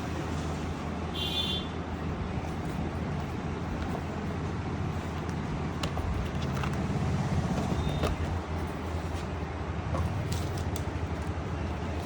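Steady background street traffic noise with a low hum, and a brief high-pitched tone about a second in.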